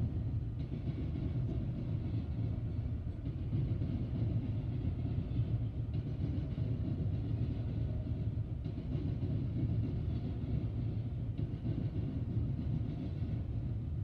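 Empty coal hopper cars of a freight train rolling past a grade crossing: a steady low rumble of wheels on rail, heard muffled from inside a car.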